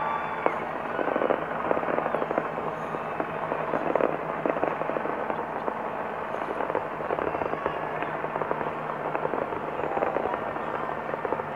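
Fireworks going off in a rapid, continuous crackle of pops and bangs, with a few louder bangs in the first four seconds.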